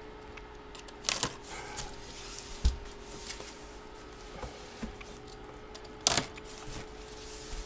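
Packaging and photos being handled: two short rustles, about a second in and about six seconds in, with a few soft knocks between, over a faint steady hum.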